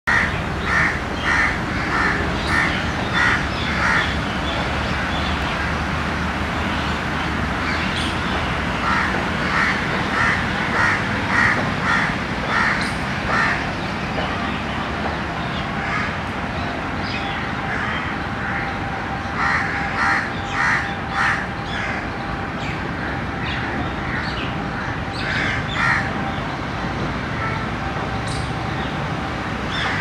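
A crow cawing in runs of harsh caws, about two a second, with pauses of several seconds between the runs.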